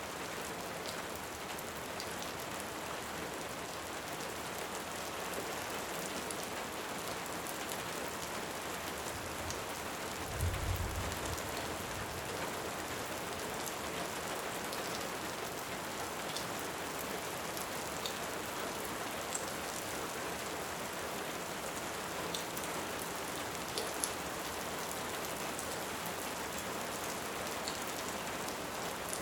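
Steady, heavy rain with sparse crackles from a wood fire. A brief low thump sounds about ten seconds in.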